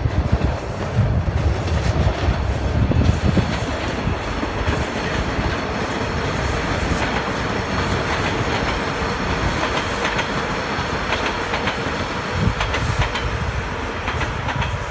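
TTC subway train running past on surface track, with a steady rumble of wheels on rail and scattered clicks as the wheels cross rail joints, more of them in the second half.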